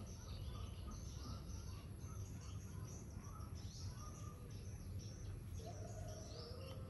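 Small birds chirping repeatedly in short calls over a low, steady outdoor rumble.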